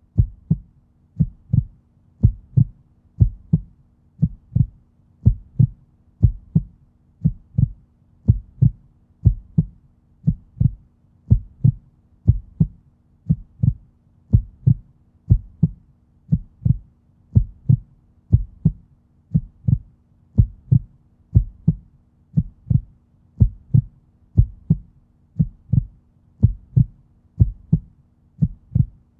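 A slow, steady heartbeat-like pulse: deep thumps about once a second, with a faint steady hum under them.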